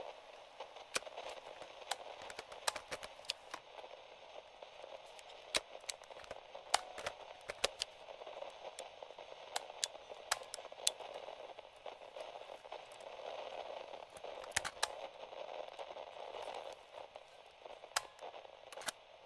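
Vintage portable radio static: a steady, thin hiss with frequent sharp crackles and pops scattered through it, the hiss swelling a little about two-thirds of the way through.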